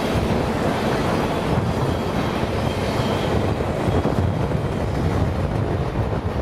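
Freight train cars rolling past close by: a steady, loud rumble of steel wheels on the rails with rapid, irregular clatter.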